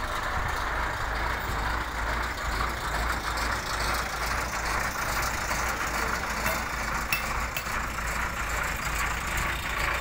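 Heavy truck's diesel engine idling, a steady low rumble.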